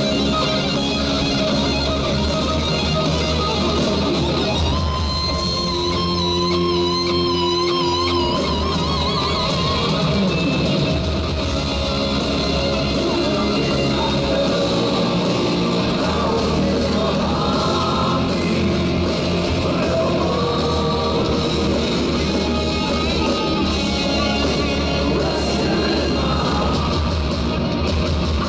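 Live hard rock band playing loud through the arena PA, recorded from the audience: electric guitars, bass and drums, with a singer. A held note with a wavering vibrato stands out about five seconds in.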